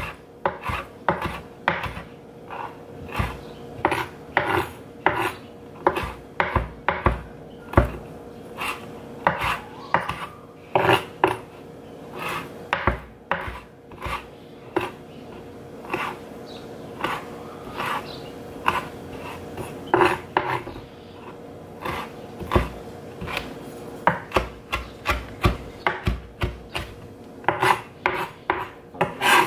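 Chef's knife chopping fresh rosemary on a plastic cutting board: a quick, uneven run of blade strikes, about two to three a second, with brief pauses, over a faint steady hum.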